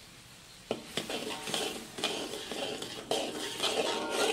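Metal ladle stirring a thick bubbling spice paste in a metal wok, scraping the pan and knocking against it several times. The scraping and knocks begin a little under a second in.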